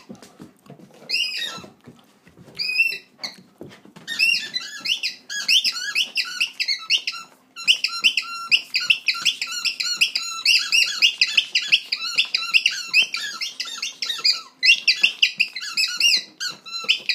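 Doberman chewing a pink rubber squeaky ball and making it squeak: a few single squeaks at first, then from about four seconds in a rapid run of high squeaks, several a second, broken only by brief pauses.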